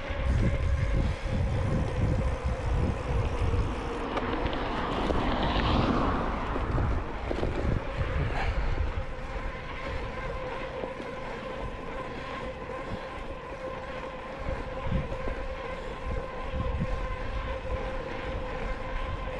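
Wind buffeting the action camera's microphone while riding a bicycle, in uneven low gusts, over a steady hum from the rolling bike. A vehicle swells past on the road about five seconds in.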